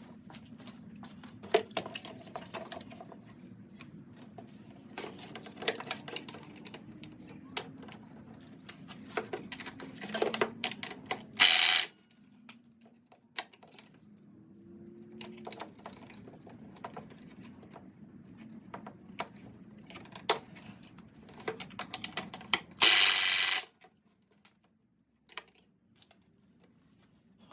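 Hand tools clicking and clinking against the metal parts of a lawn mower during a repair, over a steady low hum. Two short, loud rushing bursts come about halfway through and again near the end, and the hum stops with the second burst.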